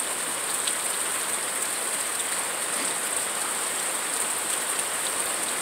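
Steady rain falling, an even hiss with no breaks, under a constant high-pitched buzz.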